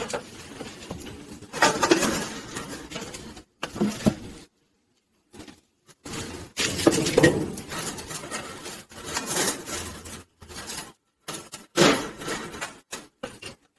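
A log being put on a wood fire in a fireplace: a metal fire screen and fire tools clanking and wood knocking, in irregular clatters with short pauses between them.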